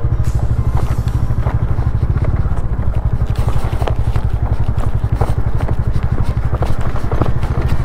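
Bajaj Dominar 400's single-cylinder engine running steadily at low road speed, heard from the rider's seat, with scattered knocks and rattles as the bike rolls over a rough, stony surface.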